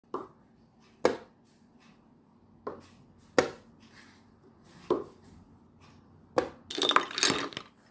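A series of sharp knocks or taps, six of them a second or so apart, then a rapid clattering run near the end.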